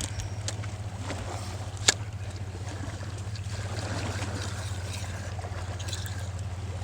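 Bay water lapping against rocks under a steady low rumble, with one sharp click about two seconds in.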